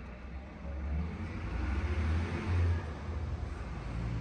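Car engine and cabin rumble heard from inside the vehicle's cargo area: a low, steady rumble that swells about a second in.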